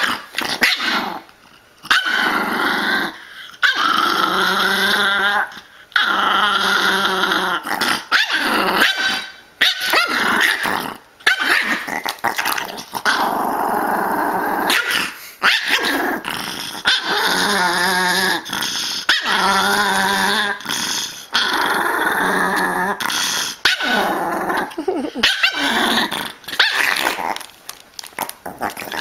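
Pomeranian growling and snarling in long, wavering bouts of several seconds each, broken by short pauses.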